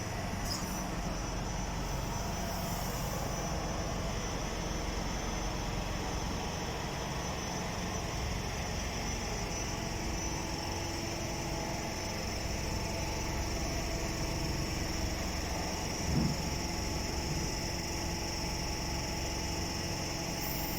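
Docklands Light Railway train standing at the platform just before departure, its electrical equipment giving a steady hum with a high whine and a lower tone that comes in about halfway. A single short knock about three-quarters of the way through.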